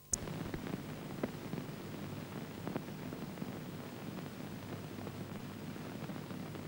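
Steady hiss and crackle of an old film soundtrack, with scattered small pops, switching on with a click at the start.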